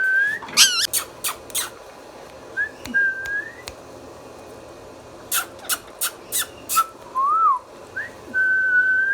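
Indian ringneck parrot whistling: several steady, clear notes that each slide upward at the end, a warbling note, and two runs of short, sharp clicking calls, five in quick succession near the middle.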